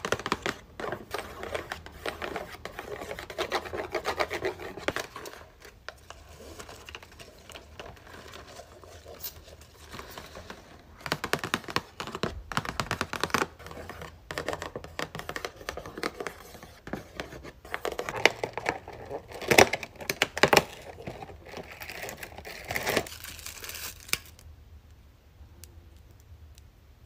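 Long fingernails tapping and scratching on the cardboard of an advent calendar box, with paper tearing and crumpling as a door is opened and a small stone is unwrapped. Many quick taps and rustles come in clusters, then die down for the last few seconds.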